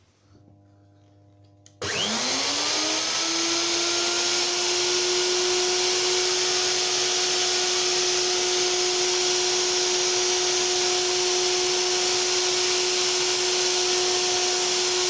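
An electric motor switches on about two seconds in, spins up with a rising whine and then runs at one steady speed with a strong rushing hiss.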